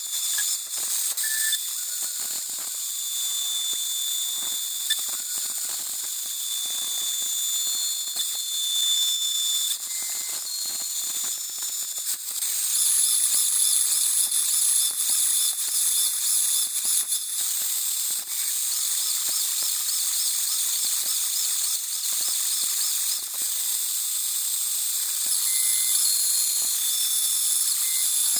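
High-pitched whine and hiss of NEMA 23 stepper motors driving the converted mini mill's axes on their ballscrews. Several thin tones shift in pitch as the moves change speed, with a new higher tone coming in about twelve seconds in.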